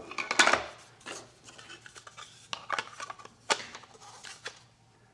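Hard plastic clicks, knocks and rubbing as a Nokta Makro Simplex metal detector's search coil is handled and fitted against a 3D-printed PLA hook. It comes as a run of irregular small knocks, the loudest about half a second in.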